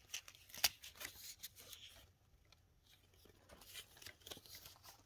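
Faint rustling and brushing of a mesh hockey jersey being handled and turned over close to the microphone: a string of soft scrapes, with a sharper tap about half a second in.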